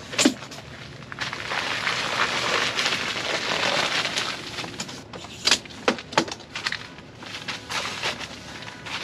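Crinkly rustling and scraping of the tent's fabric floor as a wheeled portable power station is pulled across it, then a few sharp knocks a little past the middle as it is set down.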